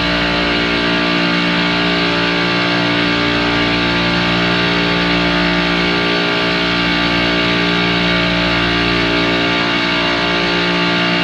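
Background music with guitar, steady and loud throughout.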